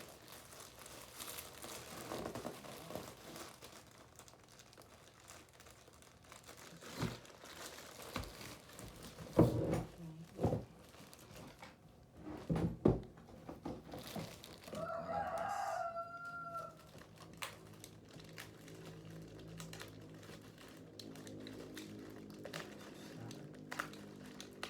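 A rooster crowing once in the background, about two seconds long, partway through. It is surrounded by the rustle and crinkle of plastic packaging being handled, with a few sharp knocks, the loudest about nine and a half seconds in.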